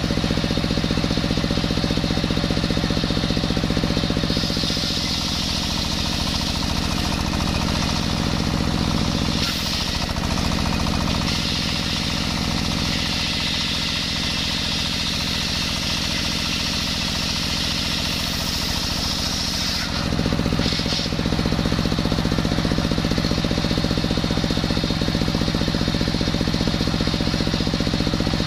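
Table circular saw driven by a stationary single-cylinder diesel engine running steadily. From about five seconds in until about twenty seconds the blade rips lengthwise through a coconut log, adding a loud high hiss over the engine; the hiss stops when the cut ends.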